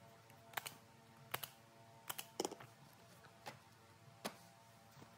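Sheets of paper being handled on a desk: a handful of short, irregular taps and clicks, faint overall, over a faint steady hum.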